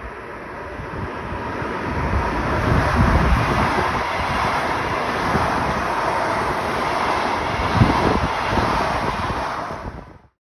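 Siemens Desiro HC (BR 462) electric multiple unit passing close by, its running noise growing over the first three seconds and then holding steady, with wind buffeting the microphone. The sound cuts off abruptly near the end.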